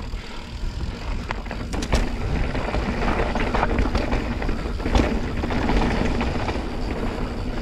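Mountain bike descending a dirt trail, heard through a GoPro action camera: a steady rush of tyres and air with the bike rattling, and sharp knocks over bumps, the loudest about five seconds in.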